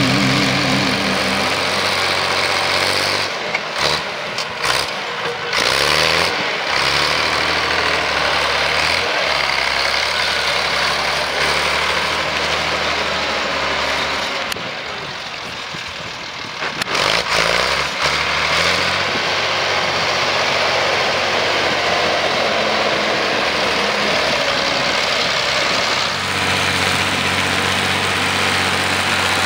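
Ursus tractor's diesel engine running steadily, dropping a little in level for a few seconds around the middle.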